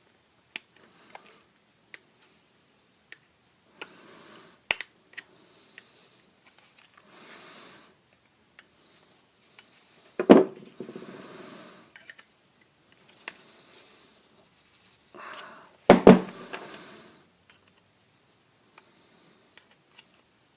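Small clicks and scraping of a plastic Reloc wiring connector being pried apart by hand to free its steel parts, with two louder sharp knocks about halfway through and again near three-quarters, each trailing into a brief rattle.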